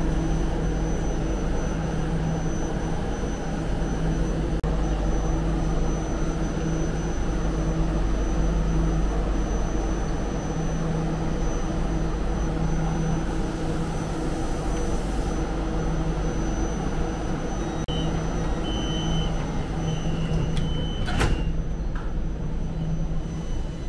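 Steady hum of a crowded MRT train standing at the platform with its doors open. Near the end a few short warning beeps sound and the doors slide shut with a knock.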